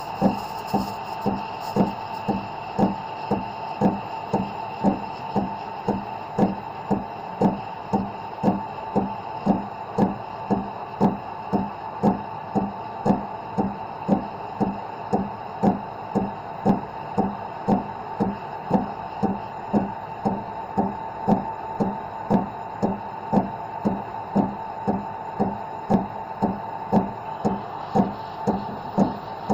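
Espresso machine steam wand steaming milk in a stainless steel pitcher: a steady steaming noise that pulses evenly about twice a second.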